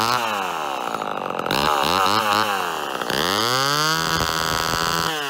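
Vintage Homelite Super XL two-stroke chainsaw revving with no load: the engine speed rises and falls several times, and the last rev is held high for about two seconds near the end before dropping back.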